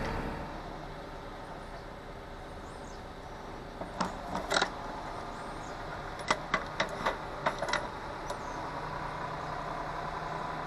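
Steady engine-like hum in the background, with a run of sharp clicks: two about four seconds in, then six or seven more at a quick, uneven pace from about six to eight seconds in.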